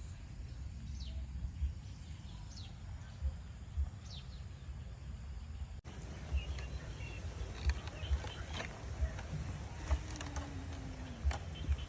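Forest ambience: a steady high insect drone with a few faint short bird chirps, and scattered soft low knocks.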